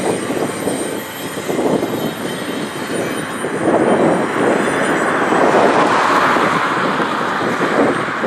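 Doublestack intermodal well cars rolling past over a bridge: a steady rumble and clatter of steel wheels on rail, swelling a little louder about halfway through.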